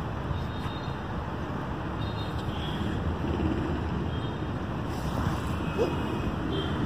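Steady outdoor background rumble, with a faint short chirp about six seconds in.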